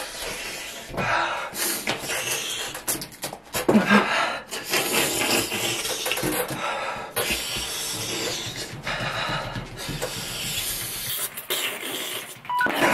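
A person panting and hissing air in and out through the open mouth, with an occasional short moan, against the burn of an extremely hot chili chip (Paqui One Chip). Near the end a phone's timer alarm starts beeping.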